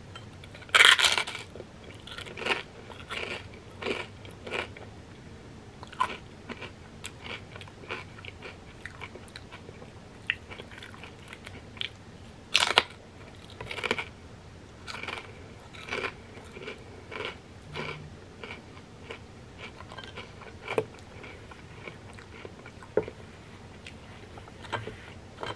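Fried wonton chips loaded with creamy crab rangoon dip being bitten and chewed: a loud crunch about a second in, another about halfway, and crunchy chewing in between.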